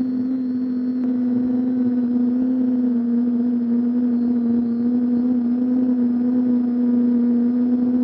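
Parrot Anafi Ai quadcopter's motors and propellers in flight, a steady, even hum picked up by the drone's own onboard camera microphone.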